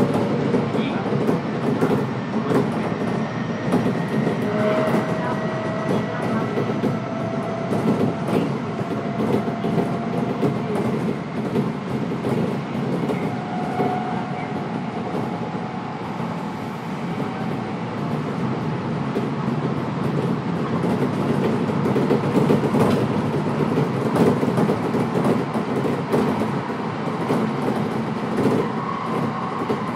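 Kintetsu electric train running between stations, heard from inside the car: a steady rumble of wheels on rail, with frequent clicks from the rail joints. A faint whine rises slowly in pitch through the first half.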